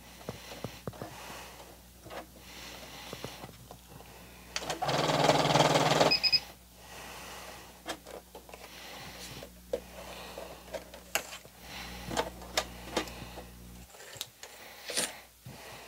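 Singer Heavy Duty 6800C sewing machine stitching slowly through thick layers of leather with its standard needle, its motor humming under regular needle clicks; it gets louder for about a second around five seconds in and stops about fourteen seconds in. The work would go better with a leather needle.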